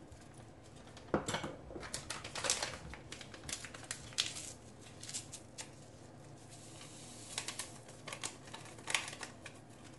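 Small paper sachets of vanilla sugar being torn open and shaken out over a glass mixing bowl: irregular clusters of crisp paper crinkling and tearing clicks.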